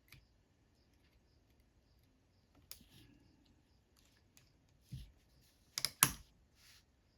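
Small metal parts of a Craftsman 3/8-drive ratchet clicking and tapping against each other and against small tools as its internals are worked back into the head; a handful of sharp, separate clicks, the loudest pair about six seconds in.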